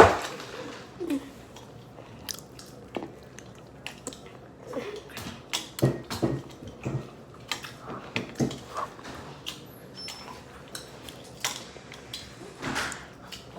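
Someone eating cake close to the microphone: chewing, with scattered small clicks and taps of utensil and dish. There is a sharp knock right at the start.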